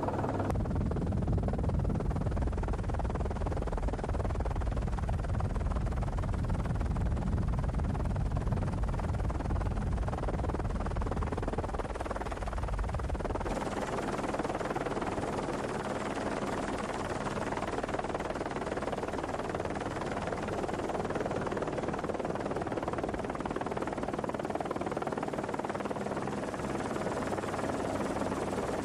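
Steady helicopter noise: rotor and engine drone with rushing air. About thirteen seconds in, the deep rumble drops away and a lighter, hissier noise with a faint steady hum takes over.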